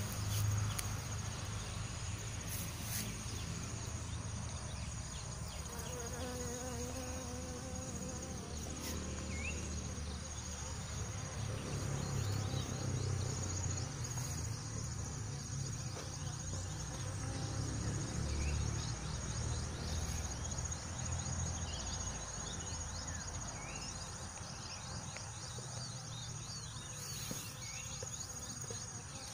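Insects droning in a steady chorus, a thin high note that holds without a break, with a low rumble underneath.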